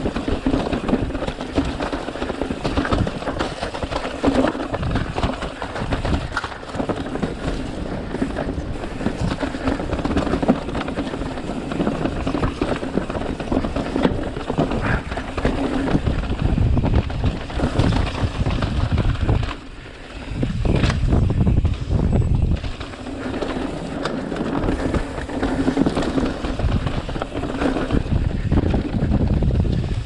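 Mountain bike ridden down a dirt trail: tyre noise and the bike rattling over rough ground, with wind buffeting the microphone. It eases briefly about two-thirds of the way through.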